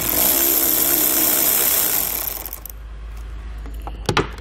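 Cordless electric ratchet with a 10 mm socket spinning a nut off a car battery's positive terminal stud, running for about two and a half seconds and then stopping. A couple of light clicks near the end.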